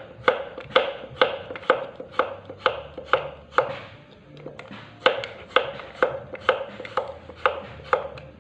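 Kitchen knife slicing peeled jengkol (dogfruit) on a wooden board, the blade knocking through onto the board about twice a second, with a short pause midway.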